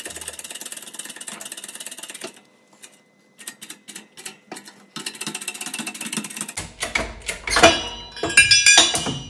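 Hydraulic shop press pressing a jet-ski jet pump drive shaft out of its bearings through the aluminium pump housing: a fast rattling clicking, then in the last few seconds loud metallic clanks that ring, as the shaft comes free of the bearings.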